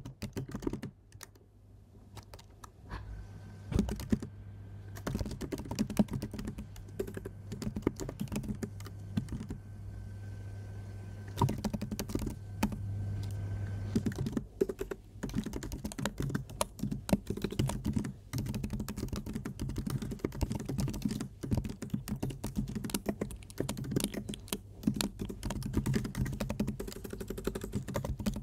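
Computer keyboard being typed on, a steady run of quick, irregular keystrokes over a low steady hum.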